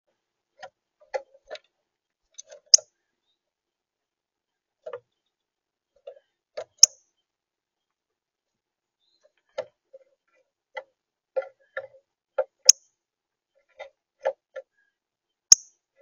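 Northern cardinal pecking and cracking seed on a bird feeder tray: irregular taps and clicks of beak on seed and tray, with four louder, sharper cracks spread through.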